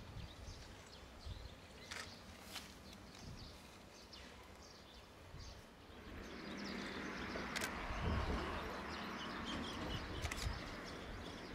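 C12 steam tank locomotive standing at rest, a low steady hiss with a few sharp clicks; about halfway in the hiss grows louder and fuller, with some low rumbles.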